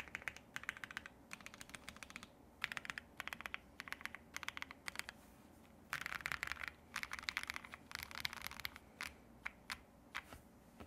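Typing on a Spark67 R3 mechanical keyboard, fitted with lubed Opblack switches on a POM plate and XMI Cadet keycaps. The keystrokes come in quick runs with short pauses, the densest run about six seconds in, and thin to a few single taps near the end.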